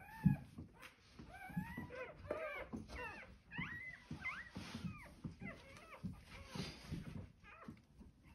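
Newborn German Shorthaired Pointer puppies squeaking and crying: a string of short, high-pitched, arching cries, one after another.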